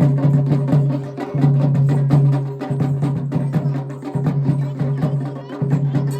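Traditional Kumaoni folk music: fast, dense drum and percussion strokes over a sustained low tone.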